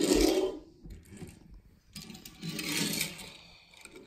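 Die-cast metal Thomas & Friends toy engines being pushed and rolled across a glass tabletop, their small wheels rattling. There are two stretches of it: a louder one at the start and another about two seconds in.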